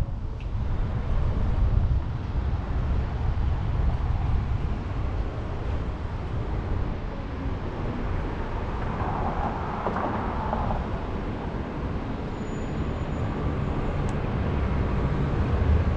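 Steady low rumble of wind buffeting the microphone of a moving bicycle, with road traffic passing.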